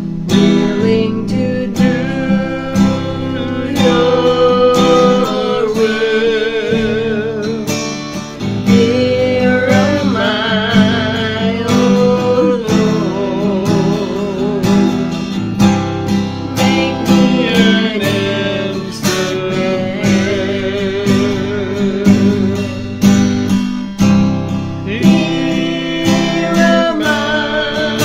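A woman singing a slow worship song with vibrato, accompanying herself by strumming an acoustic guitar.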